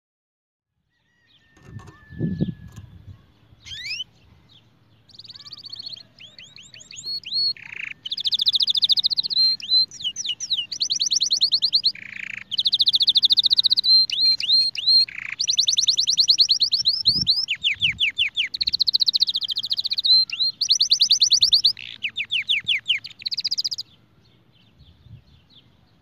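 Domestic canary singing a long run of fast trills and rolls: rapid repeated sweeps and high clear notes in phrases with short breaks. The song starts a few seconds in and stops shortly before the end. A short low thump comes just before the song begins.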